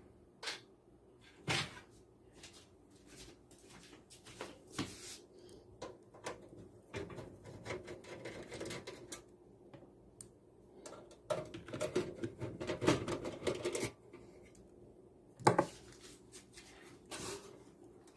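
Clicks, knocks and scraping of computer parts being handled while a desktop PC's power supply is swapped. Scattered sharp knocks, a busier stretch of rattling and scraping in the middle, and a sharp knock near the end.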